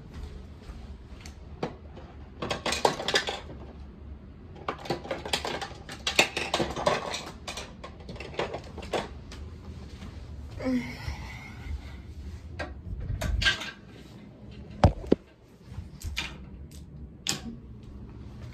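Small objects clicking, tapping and rustling as they are handled close to the microphone, with a single sharp knock about fifteen seconds in.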